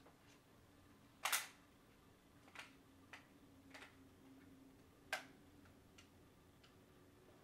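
A few short, sharp clicks spaced irregularly over a faint steady hum, the loudest about a second in.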